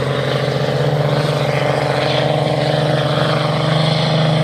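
Pulling vehicle's engine held at high revs under load, dragging a weight-transfer sled down a dirt pulling track: a steady, loud drone.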